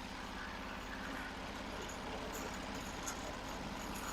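Norwood HD36 portable sawmill's gasoline engine idling steadily, throttled down with the blade not cutting.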